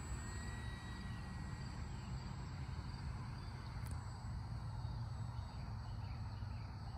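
Steady evening field ambience: insects chirping and a low rumble, with a faint thin whine over the first second or so from the distant electric motor of a model Corsair RC plane.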